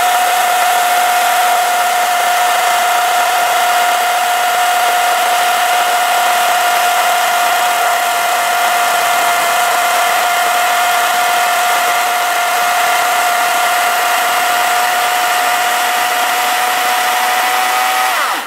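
WEN 40-volt brushless battery chainsaw cutting steadily through a hardwood log with no weight put on it: a loud, even electric whine of motor and chain, its pitch easing down slightly as the cut goes on. It cuts off abruptly at the very end as the trigger is released.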